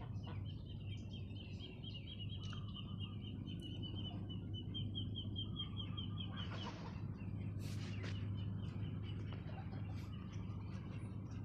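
Farmyard birds calling. A fast, high trill runs for about six seconds, breaks off, and starts again later. In the gap come a couple of short, harsher calls, all over a steady low hum.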